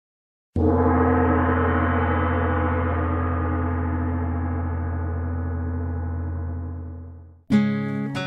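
A gong struck once about half a second in, ringing with a deep hum and slowly fading for about seven seconds. Near the end it drops away and strummed acoustic guitar music begins.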